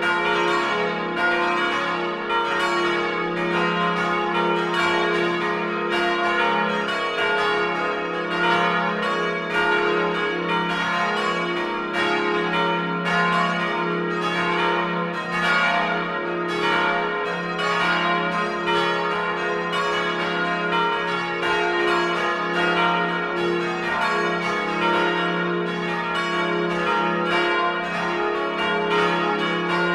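Church bells ringing together in a continuous peal: several bells swinging, their strikes overlapping at an uneven rhythm while their tones ring on.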